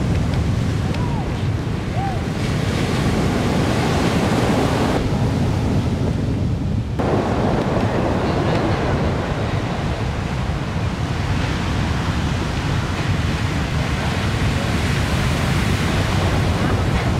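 Ocean surf breaking and rushing in a steady roar of white water, with wind buffeting the microphone.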